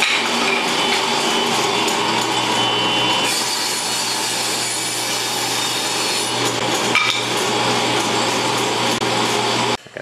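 Table saw running and cutting a groove lengthwise into a wooden top bar, a steady loud machine noise that stops abruptly near the end.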